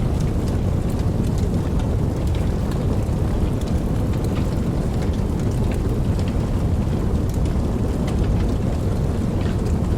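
Steady rain: a dense, even rush that is heaviest in the low range, with scattered sharp ticks of individual drops.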